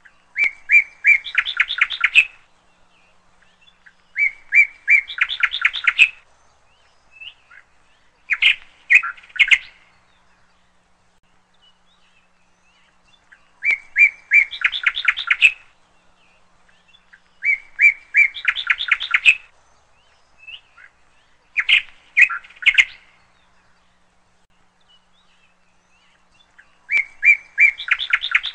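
A songbird repeating the same short song about every four to five seconds, seven times. Each song is a few clear notes followed by a fast trill.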